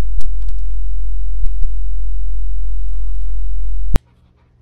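Loud, steady low hum with a few faint clicks over it, cutting off abruptly about four seconds in.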